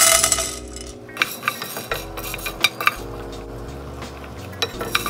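Whole black peppercorns poured into a pan for toasting: a loud rattling clatter as they land at the start, then scattered light clicks as they roll and are moved about in the pan.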